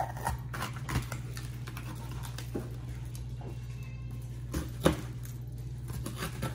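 Kitchen knife cutting a green pepper on a plastic cutting board: a handful of scattered knocks of the blade on the board, the loudest about five seconds in, over a steady low hum.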